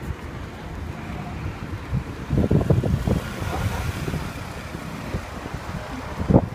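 Wind buffeting the phone's microphone over a steady low rumble, with stronger gusts about two to three seconds in.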